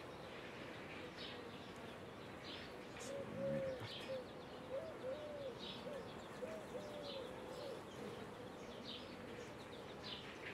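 Honey bees humming steadily over an open hive. A bird gives a few short low calls around the middle, and faint high chirps recur about once a second.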